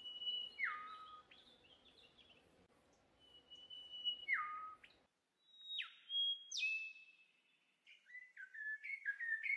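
Bird calls. Twice, about three seconds apart, a clear high whistled note drops sharply to a lower held note. A few sharp falling whistles follow, and near the end comes a quick run of chirps.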